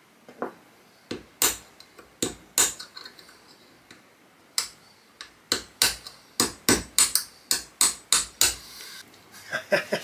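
Hammer blows on a punch set against the stuck extractor of a Carcano rifle bolt held in a bench vise, the sound of metal striking metal. A few separate taps come first, then past the halfway point a quick run of about a dozen taps at about four a second.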